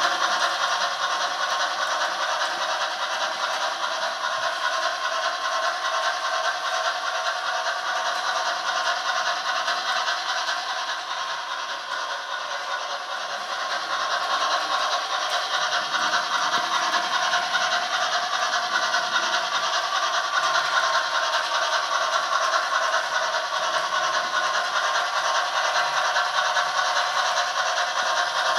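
Model steam locomotive running around its track, a steady rattling hiss that goes briefly quieter about halfway through.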